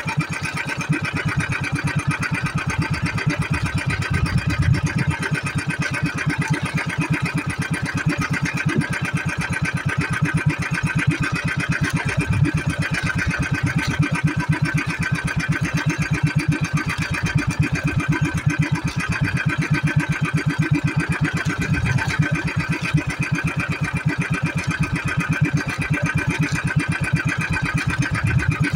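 Small boat engine running steadily at a constant speed, with a fast, even chugging pulse.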